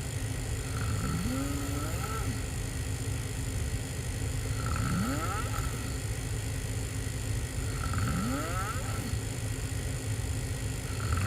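A person snoring open-mouthed while lying on their back. Each snore rises in pitch, with one coming about every three seconds over a steady low rumble.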